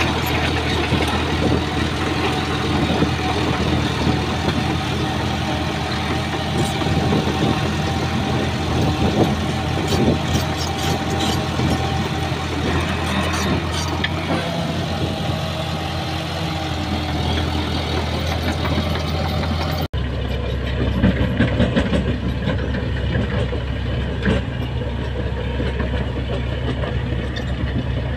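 Bulldozer's diesel engine running steadily, with scattered clanks and rattles. About twenty seconds in the sound cuts abruptly to a duller, deeper engine running.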